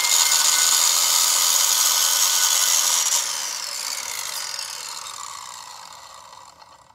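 Circular saw, rigged as a pivoting chop saw, cutting through a piece of wood with a carbide-tipped blade. About three seconds in the motor is switched off and the blade winds down, its pitch falling as it fades out.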